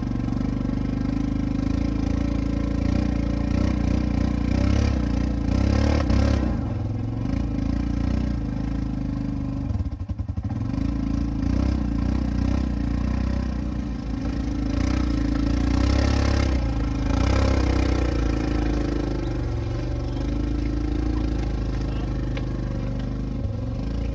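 ATV engine running under load as it tows a moose carcass through mud, the engine note swelling and easing off several times, with a brief drop about ten seconds in.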